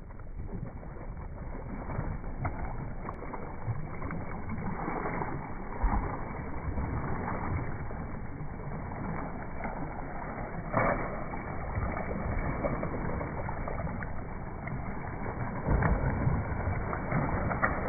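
Water splashing and sloshing in a swimming pool as someone swims, with now and then a louder splash.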